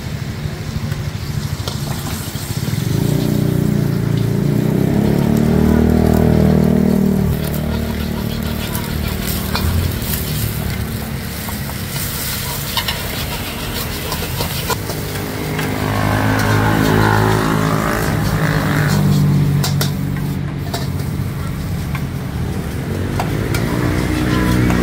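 Egg and rice frying in a wok: sizzling, with a metal ladle repeatedly scraping and clanking against the pan as the fried rice is stirred. A low rumble runs underneath, swelling twice.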